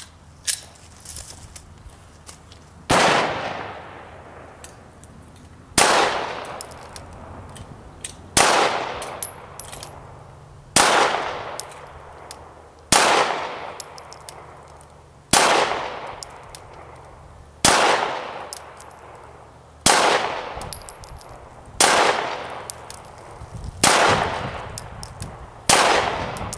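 Vickers Tactical Glock 19 9mm pistol firing slow, aimed single shots, about eleven in all, one every two to two and a half seconds, starting about three seconds in. Each sharp crack is followed by a long, fading echo.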